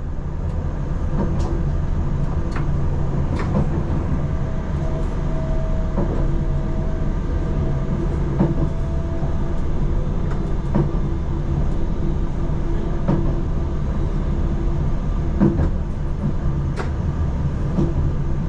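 Utsunomiya Light Line tram running on its track, heard inside the car: a steady low rumble with scattered light clicks. A steady whine joins in about four seconds in and fades about five seconds later.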